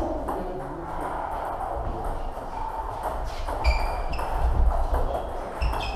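Table tennis ball clicking off bats and the table in a rally, sharp pings coming quickly from about halfway on, over the background clatter of play at other tables in the hall.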